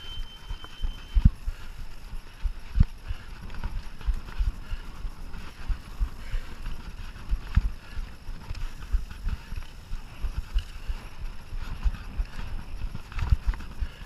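Mountain bike being ridden over rough trail: irregular knocks and rattles from the bike jolting over bumps, with rolling tyre noise underneath.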